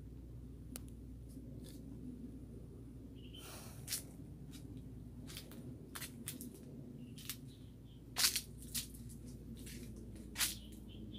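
Irregular rustling and crackling of leaves and twigs, with a few louder crunches about four, eight and ten seconds in, over a steady low rumble.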